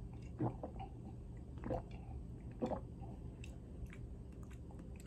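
A person sipping a drink from a small glass, swallowing and smacking their lips while tasting it: three short, soft, wet mouth sounds.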